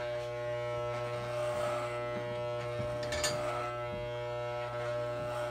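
Electric animal clippers running steadily as they shave the hair on a dairy goat's underbelly.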